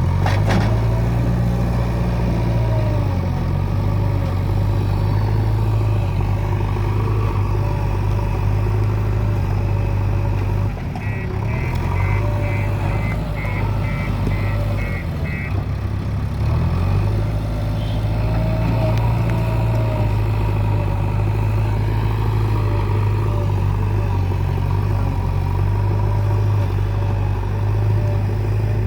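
JCB 3DX backhoe loader's diesel engine running steadily under working load, its note dipping and recovering twice. A sharp knock comes right at the start, and a run of short high beeps, about three a second, sounds from about 11 to 15 seconds in.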